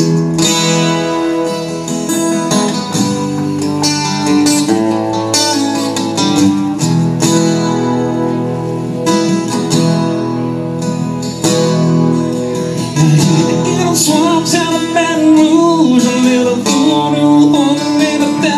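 Acoustic guitar strummed in a steady rhythm, playing a song live.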